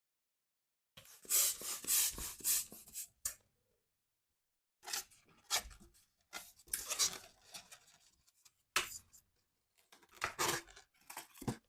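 Balloon rubber being stretched and tied, rubbing and scraping in four bursts with short silent pauses between them.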